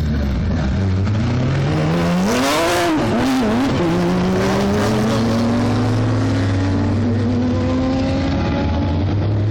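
Youngtimer racing car engine under hard acceleration. Its note climbs to a peak about two and a half seconds in, with a burst of noise, wavers up and down briefly, then climbs slowly and steadily.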